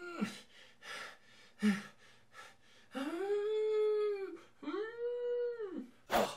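Two long wolf howls, each rising, held steady and falling away, after a few short vocal sounds. A sharp bang comes near the end.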